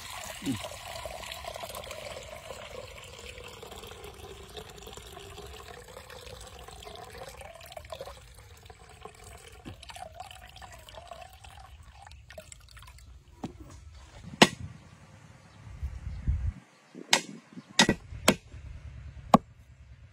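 Coconut water pouring from a freshly opened green coconut into a coconut-shell bowl: a steady splashing trickle with a ringing tone that wavers in pitch as the bowl fills, lasting about twelve seconds. After that come several sharp knocks of a cleaver striking a wooden chopping block.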